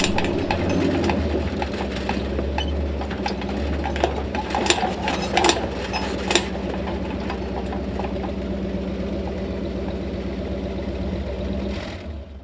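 A vehicle engine running steadily, with a few sharp clicks or rattles about halfway through.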